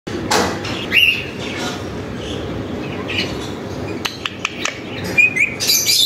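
Pet Alexandrine and rose-ringed parakeets giving short rising chirps, one about a second in and another near the end, with a few sharp clicks in between over steady background noise.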